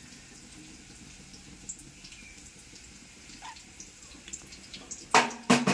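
Faint steady hiss of fine semolina (upma rava) being poured from a cup onto a steel plate. Near the end come two sharp, loud knocks about half a second apart.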